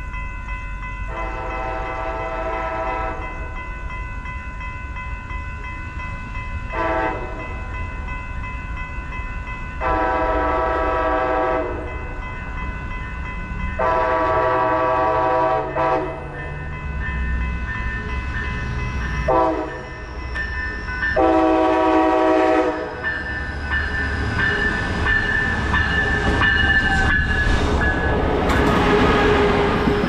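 Approaching double-deck commuter train sounding its air horn in six blasts: long, short, long, long, short, long. Crossing bells ring steadily underneath. Over the last few seconds the train's rumble grows as it rolls in beside the platform, with a high wheel squeal.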